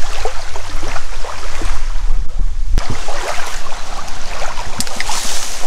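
Wind rumbling on the microphone over river water lapping at the bank.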